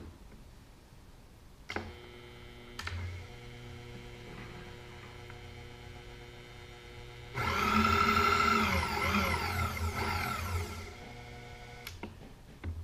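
Milling machine table power feed motor whining for about three and a half seconds from just past the middle, its pitch rising and falling, as the table traverses to the next hole position. A faint steady machine hum runs under it.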